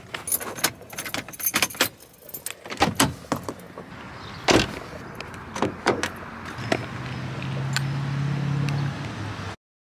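Keys jangling with a string of sharp clicks and knocks, and one louder thump about four and a half seconds in, a car door shutting. A steady low hum follows for the last few seconds before the sound cuts off suddenly.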